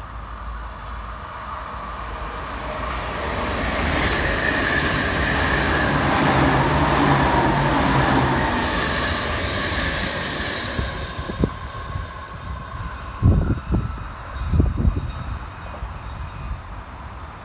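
NS intercity electric train passing through a station at speed: the rush of wheels on rail and moving air builds over several seconds, peaks about seven seconds in with a low hum underneath, then fades as the train recedes. Several low thumps of wind buffeting the microphone come in the train's wake near the end.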